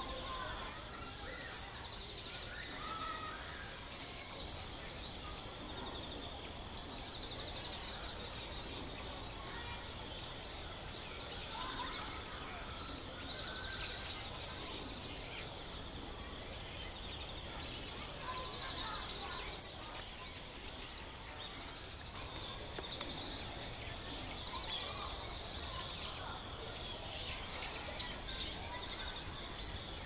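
Bird ambience: short, high-pitched chirps every few seconds over a steady high-pitched buzz, with a few faint lower calls.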